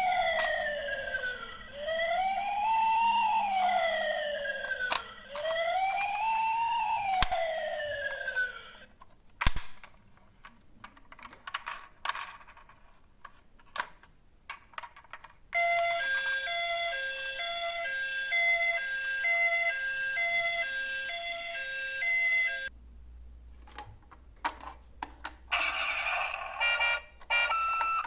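Toy emergency-vehicle electronic sirens. First comes a wail that rises and falls about every three seconds. Then there are several seconds of scattered light clicks and knocks, followed by a two-tone hi-lo siren switching between a high and a low note about once a second, and another siren sound starts near the end.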